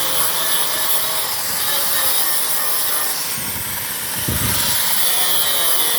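Angle grinder grinding down a raised aluminium weld bead at a joint between sections: a steady grind that eases slightly about halfway through, then picks up again.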